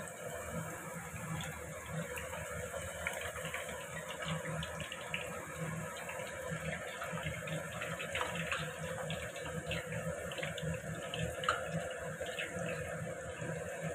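Potato slices deep-frying in hot oil: a steady sizzling and bubbling, studded with many small crackles.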